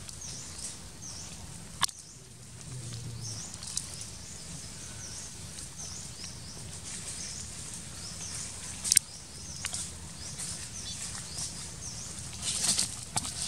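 Outdoor woodland ambience over dry leaf litter: a short high chirp repeats over and over above a low steady hum. A few sharp crackles of dry leaves as the macaques move come through, the loudest about two and nine seconds in, with a cluster near the end.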